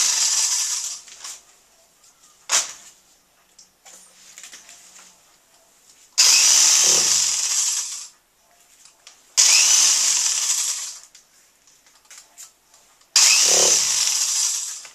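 Power drill running in short bursts of about two seconds, each switching on sharply and fading as it winds down, with a few light clicks in the pauses between.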